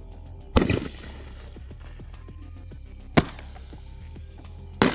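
Consumer firework artillery shell firing from a mortar tube and bursting: three sharp bangs, about half a second in, about three seconds in and near the end. The first and last have a short rumbling tail. Background music with a steady beat runs underneath.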